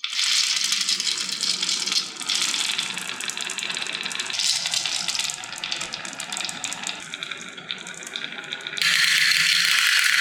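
Many marbles rolling and clattering down a wooden HABA marble-run track, a dense rattle of rapid clicks. The sound changes abruptly several times and gets louder and brighter near the end.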